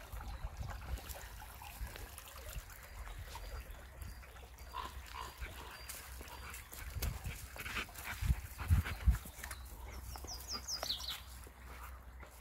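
Golden retriever sniffing and walking through dry fallen leaves, with light rustling and crunching and a few dull thumps from footsteps about eight to nine seconds in. A short run of high, falling chirps comes near the end.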